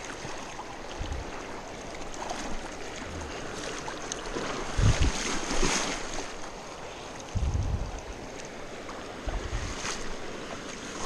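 Shallow creek riffle running over rocks, with splashing from legs wading through it and a few dull low thumps about five and seven and a half seconds in.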